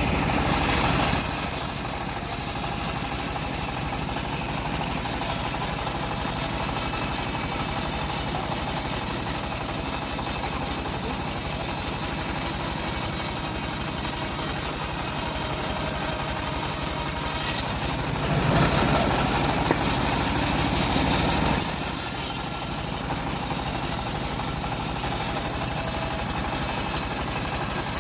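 Engine-driven wood saw running steadily while cutting timber. It grows louder and heavier for a few seconds about two-thirds of the way through.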